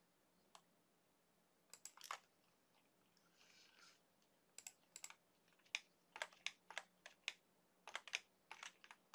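Scattered sharp clicks of a computer mouse and keyboard keys: a few about two seconds in, then a quicker, irregular run through the second half.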